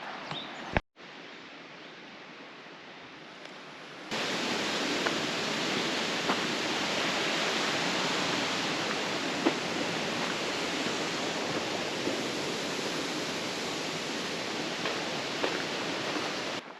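Small forest stream or mini waterfall running after rain: a steady rush of water that jumps louder about four seconds in and holds.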